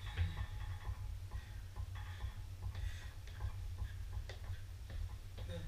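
Trainers tapping and thudding on a wooden floor in a repeated, slightly uneven rhythm as a person hops from foot to foot in a Heisman knee-drive exercise.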